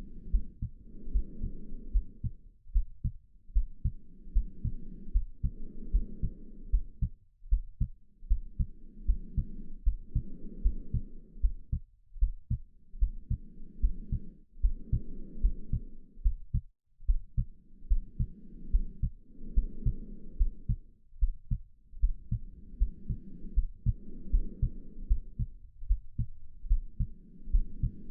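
A steady heartbeat, about two beats a second, with slow breathing laid over it: an in-breath and an out-breath every four to five seconds.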